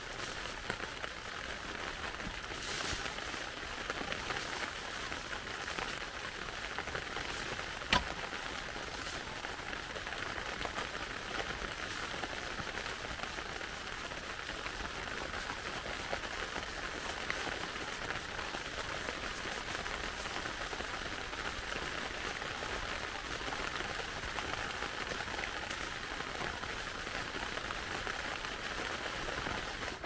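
Steady rain falling, heard as a continuous even hiss, with one sharp tick about eight seconds in.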